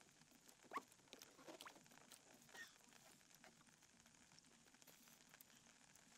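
Near silence: faint night ambience with a few soft squeaks and small clicks in the first half, the clearest about a second in.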